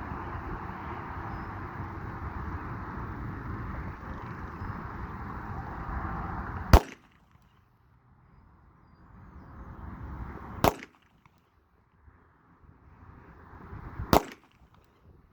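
Three single 9mm pistol shots from a Glock 19, about three and a half to four seconds apart, fired slowly to feel the trigger. Wind rushes on the microphone before the first shot.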